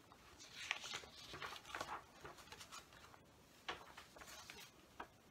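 Faint, irregular rustling with a few small sharp clicks in a quiet small room.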